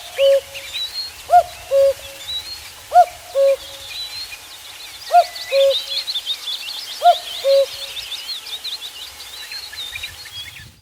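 Common cuckoo calling its two-note "cu-coo", a higher note falling to a lower one, four times about two seconds apart, then stopping. Other small birds chirp in the background, busier in the second half.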